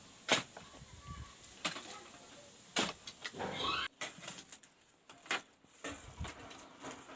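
Irregular knocks and scuffs from someone hauling a load of sand up to a rooftop, with a short chirp about three and a half seconds in.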